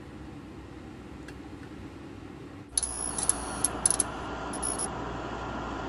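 Faint hiss, then about three seconds in an old film projector sound effect starts suddenly: a steady whirring hiss with short bursts of high-pitched mechanical chatter, played over a film-leader countdown.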